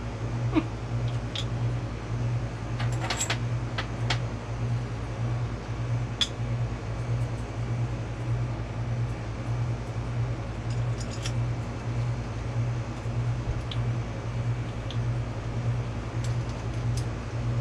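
A steady low hum runs throughout, with a scatter of light metallic clinks and taps from compressor pump parts being handled, a few clustered around three to four seconds in and again near eleven seconds and near the end.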